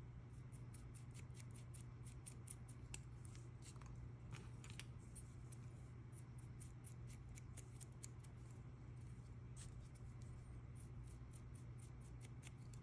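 Flat paintbrush scrubbing weathering pigment onto a scale-model tank road wheel: faint, quick scratchy ticks of the bristles against the wheel, over a steady low hum.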